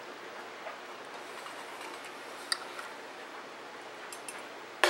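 Kitchen room tone: a steady low hiss with a few faint light clicks, and one sharp click just before the end.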